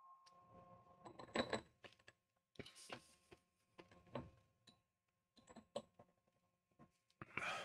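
Faint scattered clicks and light knocks from handling a spoon, with two short breathy puffs, one about three seconds in and one near the end, over a faint steady hum.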